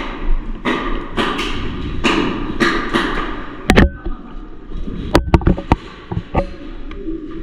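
Footsteps scuffing on the ground, then about five sharp cracks of airsoft gunfire in the second half, the first two close together.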